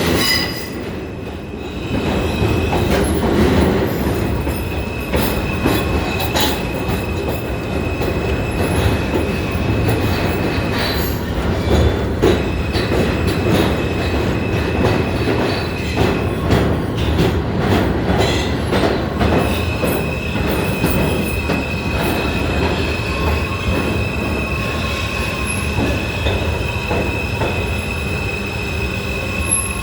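New York City subway train (F train) running at speed, heard from aboard: a steady rumble of steel wheels on rail with scattered clicks over the rail joints. Over it runs a high, steady wheel squeal that drops out for several seconds in the middle.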